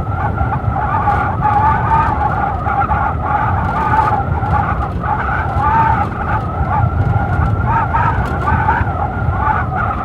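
Blizzard wind howling steadily, a wavering whistle-like howl over a low rumble of gusts.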